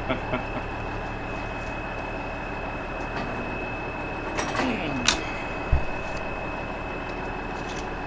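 Steady hum of an idling truck engine, with a sharp click about five seconds in and a short low thump just after it as the Fairbanks type-registering beam scale stamps the weight onto a ticket.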